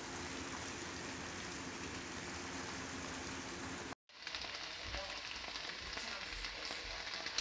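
A steady crackling hiss, cutting out for an instant about four seconds in and then starting again.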